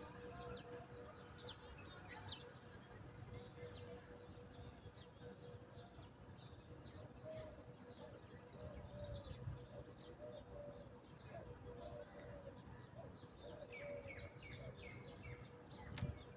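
Small birds chirping: many short, quick chirps that sweep down in pitch, overlapping throughout, heard faintly over a steady low hum. A sharp click near the end.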